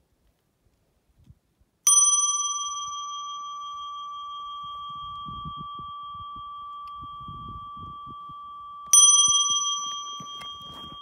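Small brass bowl bell (a rin) struck twice with a wooden striker, about seven seconds apart; each strike rings on in a clear, steady tone that slowly fades.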